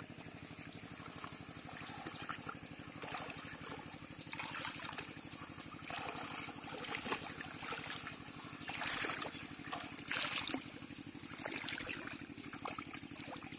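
Shallow paddy water sloshing and splashing in several short bursts as a person wades and handles plastic-bottle fish traps, the loudest splashes about two-thirds of the way in. A steady low hum runs underneath throughout.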